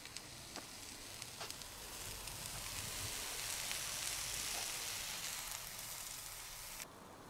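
Food sizzling on a barbecue, a steady hiss with a few faint pops, a little louder in the middle; it cuts off abruptly near the end.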